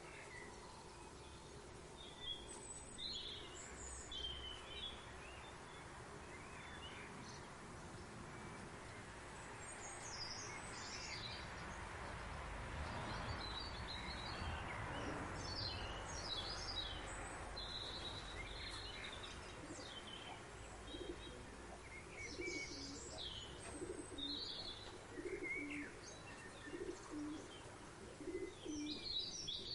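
Outdoor birdsong: several small birds chirping and trilling in high, short phrases. A soft rush of noise swells through the middle and fades. In the last third a low call repeats about once a second.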